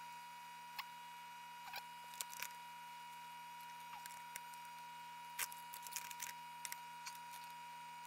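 Light, scattered clicks and taps as a soldered pair of 18650 lithium cells is handled, with a cluster near the start and another about five to six and a half seconds in. Under them runs a faint steady electrical hum with a high whine.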